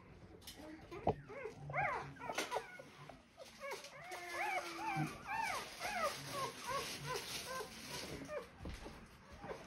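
Newborn German Shorthaired Pointer puppy whimpering and squealing in a quick run of short, high, rising-and-falling cries, while it is handled for tail docking and dewclaw removal.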